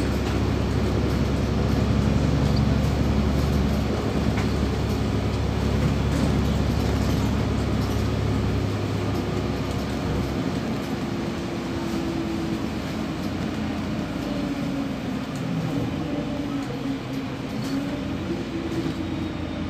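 Cabin noise of a LiAZ 5292.67 city bus on the move: a steady engine and road rumble that eases about nine seconds in as the bus slows toward its stop. Through the second half a faint whine slowly falls in pitch.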